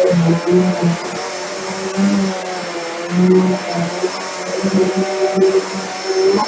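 Vax Air Mach Force 1600-watt upright vacuum cleaner running after a strip-down and clean, a steady high motor whine over a low hum that pulses unevenly.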